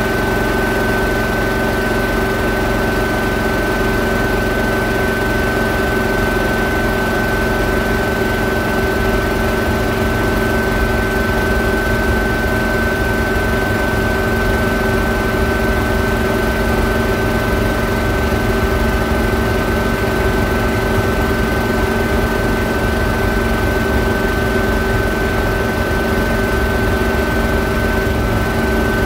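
J34 turbojet being spun over in a start attempt on low fuel pressure and diesel fuel, with the small gasoline engine on the stand running: a steady mechanical drone with a high whine held at one pitch.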